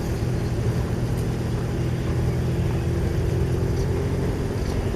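Car engine and tyres heard from inside the cabin while driving slowly, a steady low drone.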